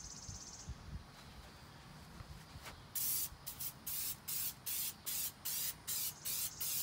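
Aerosol can of furniture polish spraying in short, quick bursts, a hiss about three times a second, starting about three seconds in.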